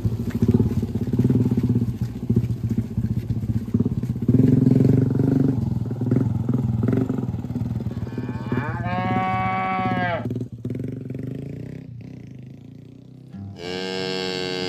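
Cattle mooing: one long, arching moo about two thirds of the way in and a second, louder moo near the end, over a low rumble that fills the first half and fades.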